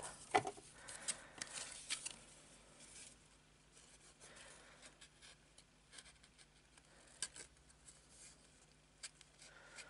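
White cardstock rustling and scraping under the fingers as the box's glued side is pressed and folded into place. The sounds are busiest in the first three seconds, then thin out to a few faint scrapes and ticks.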